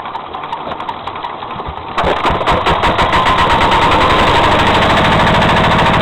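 Diesel walk-behind tractor engine running with a fast, even knock. It jumps much louder about two seconds in and then runs steadily. The knock started after the crankshaft's right counterweight worked loose and was retightened, and the owner does not know its cause.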